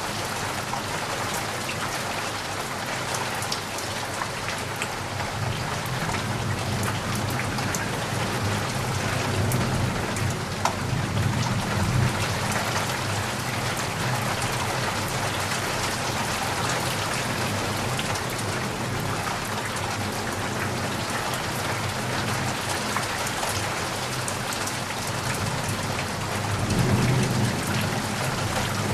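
Heavy rain pouring steadily, with individual drops pattering. Thunder rumbles low twice, once near the middle and more strongly near the end.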